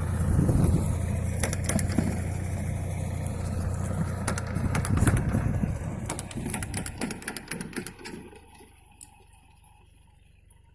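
Tractor engine running steadily while rotary tilling, with scattered clicks and knocks over it. The sound fades away about seven to eight seconds in, leaving only a quiet background.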